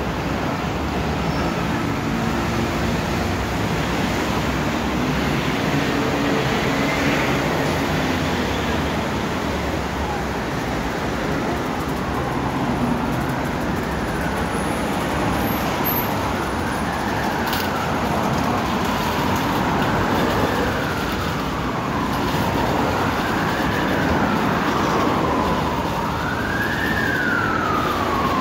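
Steady road traffic noise, with an emergency vehicle's siren wailing slowly up and down, coming in faintly about halfway through and growing louder near the end.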